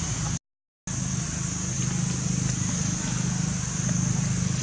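Steady low engine rumble with a high steady hiss above it; the sound cuts out completely for about half a second near the start.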